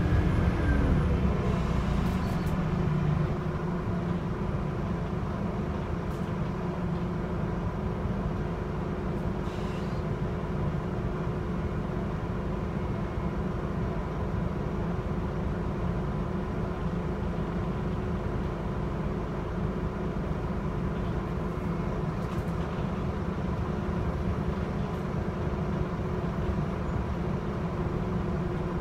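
Cabin sound of a Scania Citywide LFA articulated city bus: the engine running steadily with a low drone and a few steady tones. It is a little louder for the first three seconds.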